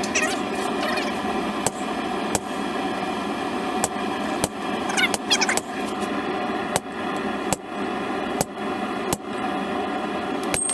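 Hammer blows ringing on steel at an anvil, about one every second, as a railroad spike is forged, over a steady workshop hum.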